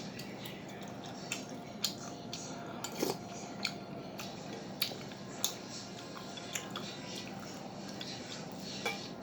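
Eating a bowl of sujebi: utensils clicking sharply against the bowl about eight times at irregular intervals, with quieter chewing between.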